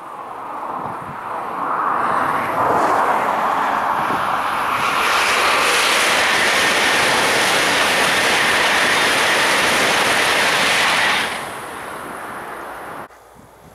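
A Eurostar high-speed train passing at speed: a broad rush of air and wheel noise builds over the first few seconds, holds loud and steady for about eight seconds, then falls away sharply near the end as the train clears.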